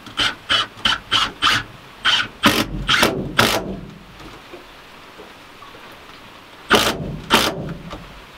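Cordless drill run in short trigger bursts into wood: a quick series of about three a second, a louder run of longer bursts a couple of seconds in, then two more near the end.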